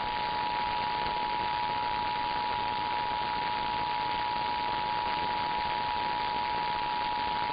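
Emergency Alert System two-tone attention signal, 853 Hz and 960 Hz sounded together, held steady for about eight seconds and stopping suddenly just before the end. It is heard through an off-air radio broadcast with a constant static hiss underneath. It marks the start of an emergency alert, here a National Weather Service flash flood warning.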